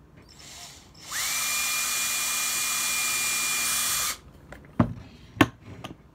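Handheld power drill with a tiny bit drilling a small hole. The motor spins up quickly with a short rising whine about a second in, runs steadily for about three seconds, then stops. A few sharp knocks follow.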